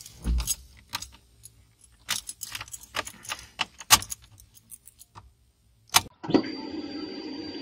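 Car keys jangling and clicking as the key goes into the ignition and is turned; about six seconds in, a steady buzz starts. The buzz is the car's 12-volt electric fuel pump in the fuel tank priming at ignition-on, which runs for about three seconds to send fuel toward the engine.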